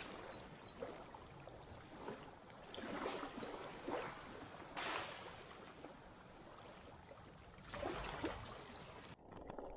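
Small waves washing on a sandy shore in irregular surges a second or so long, over a low rumble of wind on the microphone.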